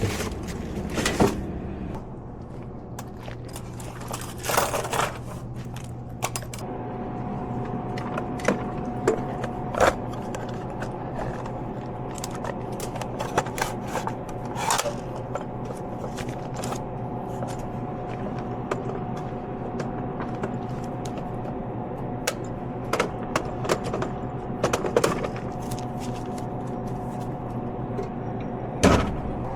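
Snack packets and products being handled in an open vending machine during restocking: scattered clicks, knocks, scrapes and crinkles over a steady electrical hum.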